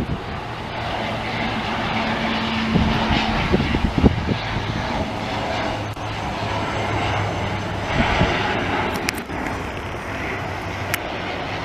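Jet engines of an Air Canada Rouge Boeing 767 taking off, a steady loud rush of engine noise.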